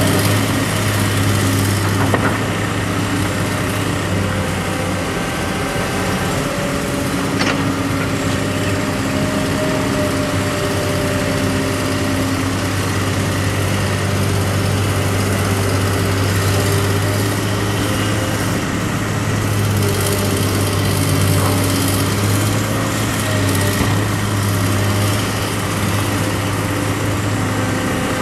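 Diesel engines of working hydraulic excavators, a Komatsu 290 and a Daewoo, running steadily under load with a strong low hum. There are two brief knocks, one about two seconds in and one about seven seconds in.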